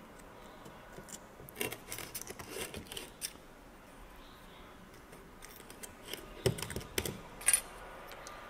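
Small metal clicks and scrapes as thin steel brake pad abutment clips are handled and snapped onto a cast-iron brake caliper bracket. The clicks come in two clusters: one about a second and a half in, and a louder one near the end.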